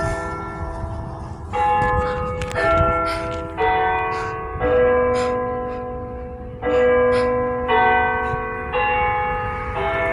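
Church bells ringing a tune of separate notes at different pitches, about one stroke a second, each note ringing on into the next.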